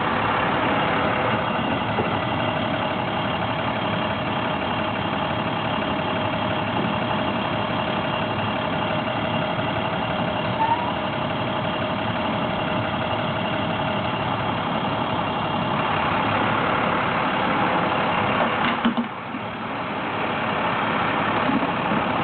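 Engine of a small well-drilling truck running steadily, with a brief drop in level near the end.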